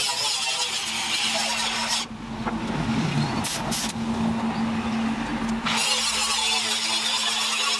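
Forge fire running under its air blower: a steady rushing hiss over a low, even hum. The hiss drops away for a few seconds in the middle and then comes back.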